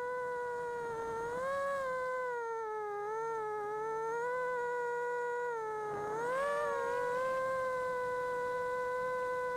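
FPV racing quadcopter's brushless motors and propellers whining steadily in flight, the pitch sagging and rising with the throttle, with a sharp dip and quick climb about six seconds in.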